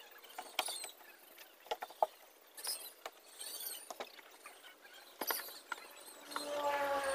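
Truck cab being washed by hand: cloth or brush scrubbing and wiping the wet panels, with scattered squeaks, scrapes and light knocks. About six seconds in, a pitched tone comes in and falls slightly in pitch.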